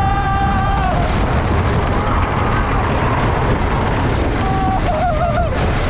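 Ghost Rider wooden roller coaster ride: a loud, steady rush of wind and rumble, with riders letting out long held yells at the start and again near the end.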